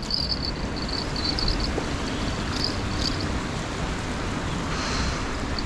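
Insects, likely crickets, chirping in short repeated trills that come and go, over a steady rushing outdoor noise.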